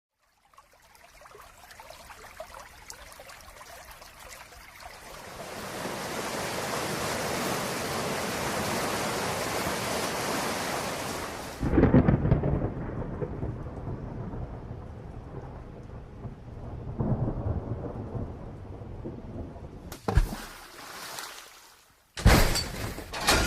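Thunderstorm sound effect: steady rain builds up and grows louder, then a loud thunderclap comes about halfway, followed by rolling thunder. Near the end, sudden sharp crashes cut in.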